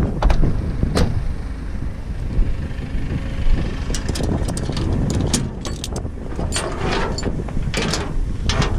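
Truck engine running with a steady low rumble, with sharp metallic clicks and rattles over it that come thick and fast from about four seconds in.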